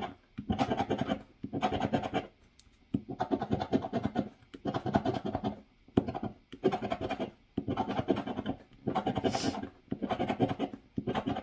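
A scratcher coin scraping the coating off a scratch-off lottery ticket. It comes in about ten short bursts of rapid scraping, each under a second long, with brief pauses between them.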